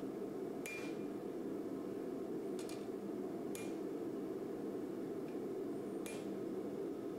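Hammer blows on a hot forged knife blade resting on the anvil: about five spaced single strikes, one a quick double tap, each with a short metallic ring, as the blade is straightened and shaped. A steady low rushing noise runs underneath.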